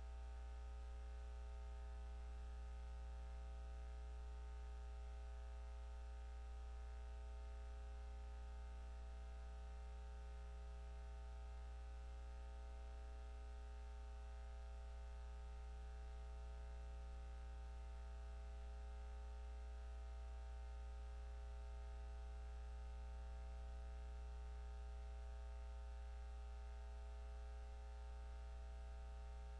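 Steady electrical mains hum with a buzzy edge, unchanging and with no other sound over it.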